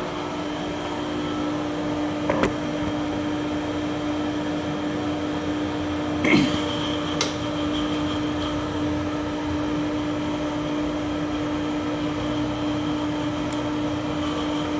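Steady electric machine hum with a constant tone, broken by a light metallic click about two and a half seconds in and a louder clack about six seconds in, followed by a smaller click.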